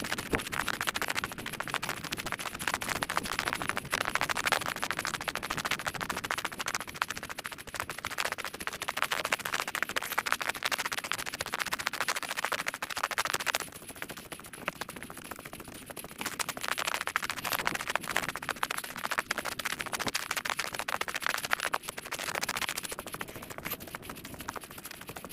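The trail's own outdoor sound played back eight times fast, a dense scratchy crackle of many tiny clicks. It drops quieter for a couple of seconds about two-thirds of the way through and again near the end.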